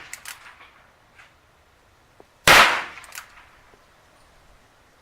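A Ruger New Bearcat .22 LR single-action revolver fires one sharp shot about halfway through. The ringing tail of the previous shot fades out at the start.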